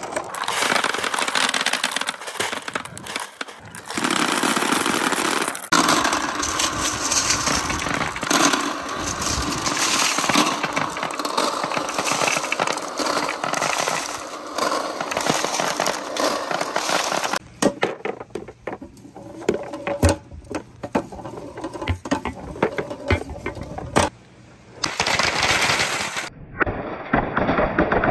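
Many glass marbles rolling and clattering down a perforated wooden board, clicking against the wood and against each other in a dense rattle. After about two-thirds in it thins to scattered separate clicks and knocks.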